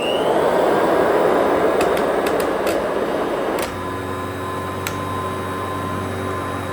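1957 Kirby Model 517 upright vacuum cleaner switched on: its motor whines up to speed and runs loud and steady. About four seconds in, the sound drops a little and settles into a steadier hum, with a few light clicks.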